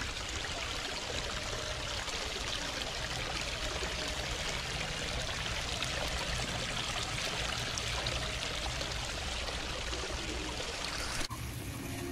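Pump-fed river-rock waterfall running, water spilling and splashing steadily into the pond. It cuts off suddenly near the end, and music comes in.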